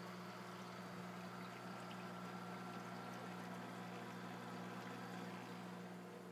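Water splashing and bubbling faintly and steadily at the surface of a 65-gallon reef aquarium, churned by the circulation outlet, over a steady low hum.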